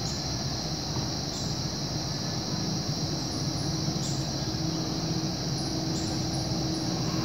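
A steady high-pitched chorus of insects over a low, even rumble, with a few short high chirps that slide downward scattered through it.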